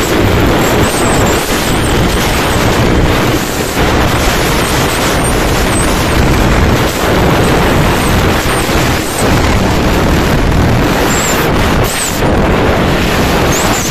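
Bajaj Pulsar 220 single-cylinder motorcycle engine running at road speed, heard under steady, loud wind buffeting on the microphone.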